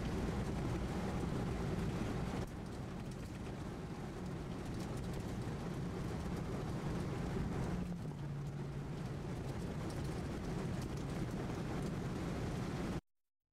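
Vehicle engine and tyre noise heard from inside the cab while driving on a wet road, a steady low hum under road hiss. The sound changes abruptly about two and a half seconds in and again about eight seconds in, when the hum drops lower, and it cuts off suddenly just before the end.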